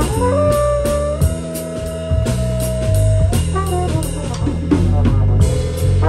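A small band playing live: an electric bass line and regular drum strokes under a trombone that scoops up into one long high held note lasting about three seconds, then moves on to shorter notes.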